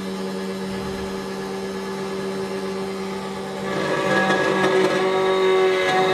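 SEC-E9 CNC key cutting machine's cutter running steadily with a hum while it cuts a Toyota TOY43 key blank, growing louder and noisier about four seconds in.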